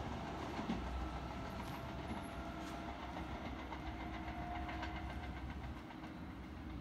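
Electric commuter train pulling away from the station, its running rumble slowly fading as it recedes, with a faint steady whine over it.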